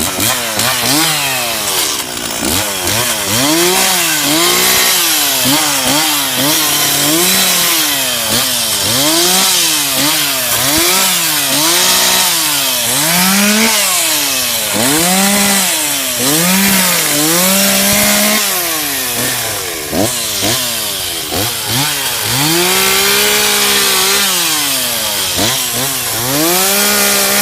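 Two-stroke chainsaw bucking a felled tree trunk into firewood lengths. The engine pitch repeatedly climbs and sags, roughly every second or two, as the throttle is worked and the chain bites into the wood.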